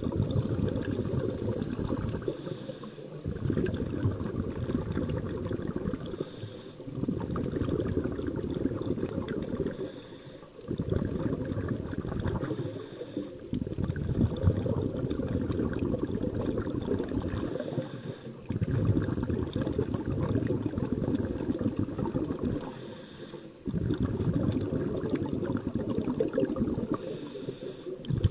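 A scuba diver breathing through a regulator underwater: exhaled bubbles rumble in long stretches, broken every few seconds by short pauses in which a higher hiss comes through.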